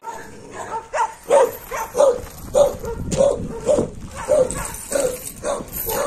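Pit bull–type kennel dog barking over and over, about two barks a second.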